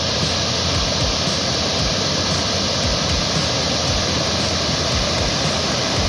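River water rushing over rocks: a steady, loud rush of white water.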